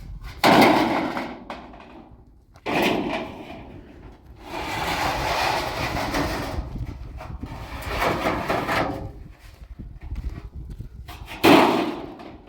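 Iron sheets being handled and dropped: three loud metallic clangs, each ringing out briefly, about half a second in, near three seconds and near the end, with a longer stretch of scraping and rattling between them.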